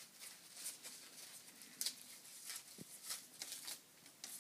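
Faint rustling and tearing of a cured tobacco leaf as its centre stem is pulled out by hand: a scattered string of short, dry crackles.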